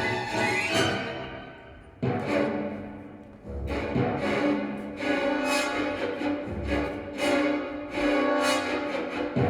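Orchestral music with bowed strings, violins and cellos, played back over high-end hi-fi loudspeakers in a show room. A phrase fades away about a second in, then the strings come back in sharply at about two seconds and again near four seconds.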